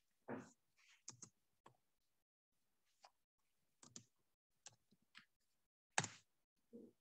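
Computer keyboard keys clicking faintly and irregularly as a search query is typed, with the sharpest keystroke about six seconds in.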